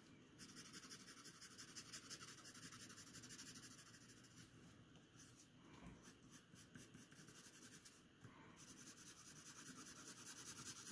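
Graphite drawing pencil cross-hatching on paper: faint, quick, rhythmic scratching strokes that ease off around the middle and pick up again near the end.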